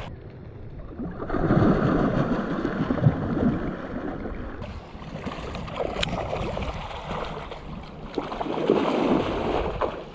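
Spawning carp splashing in the shallow water at the pond's edge, in three bouts of churning water. A single sharp click comes about six seconds in.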